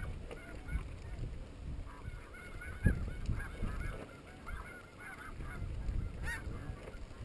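Snow geese calling, many short high-pitched honks overlapping in a steady chatter, over a low rumble. A single sharp knock sounds about three seconds in.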